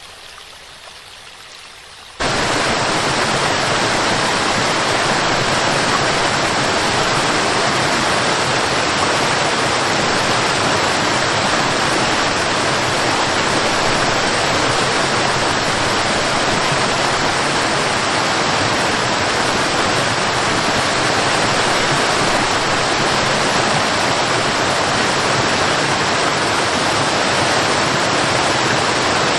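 Waterfall, a steady loud rush of falling water. It cuts in suddenly about two seconds in over a fainter hiss of water.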